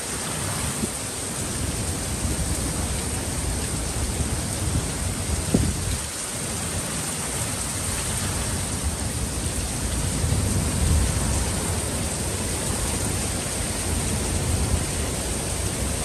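Heavy rain falling steadily in a gale-force winter rainstorm, with a deep low rumble that swells about ten seconds in. A single short knock stands out about five and a half seconds in.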